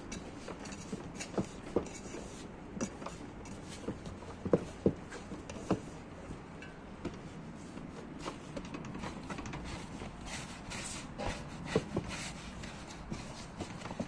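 Hands working soft yeast dough, first lifting it out of an enamel bowl, then pressing and rolling it on a floured wooden board. Scattered light knocks and taps, with the loudest a little before halfway and again near the end.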